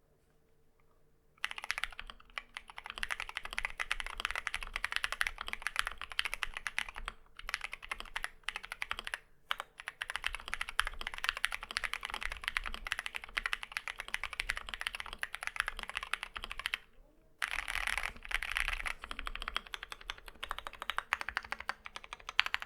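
Continuous fast typing on an Akko ACR Pro Alice Plus Alice-layout mechanical keyboard with lubed JWick Lagoon tactile switches and ASA-profile keycaps, tape-modded for a deeper sound. It starts about a second and a half in, with brief pauses around a third of the way in and again near the three-quarter mark.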